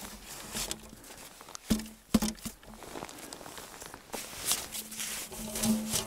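Packed snow being dug out and cleared by hand: irregular crunches and scrapes of snow with a few sharp knocks, thickest around two seconds in and again near the end, over a faint low steady hum that comes and goes.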